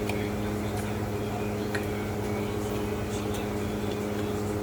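A steady machine hum with several fixed tones, like a running motor or appliance, with a few faint small clicks over it.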